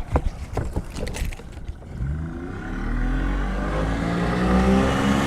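Knocks and clatter of the trolling motor being raised, then the boat's outboard motor accelerating from about two seconds in, its pitch rising steadily as the boat speeds up.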